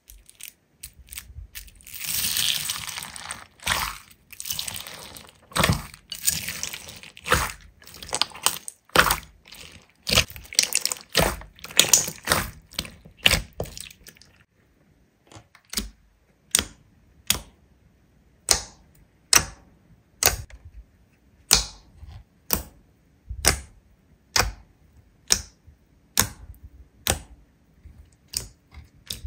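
Slime being worked by hand: a busy run of crackling and squelching pops, then sharp, evenly spaced pops about once a second from about halfway.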